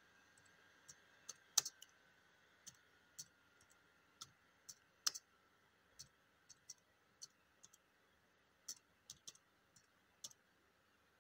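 Faint clicks of computer keyboard keys tapped one at a time at an uneven pace: slow typing.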